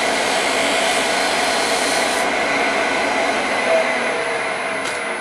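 Lathe running with sandpaper held against the spinning brass ferrule: a steady rushing hiss of abrasive on metal over the lathe's hum.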